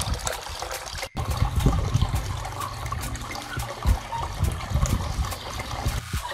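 Water trickling and splashing down a small cement waterfall, steady, with a brief dropout about a second in.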